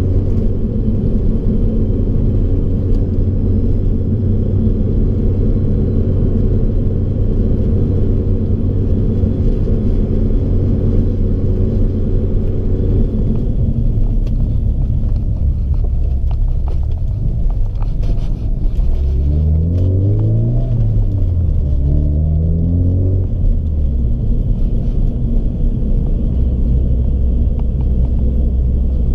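BMW E30 engine and road noise while driving: a steady drone while cruising, then the engine pitch rises and falls twice about two-thirds of the way through as the car accelerates and slows, settling back to a low steady drone.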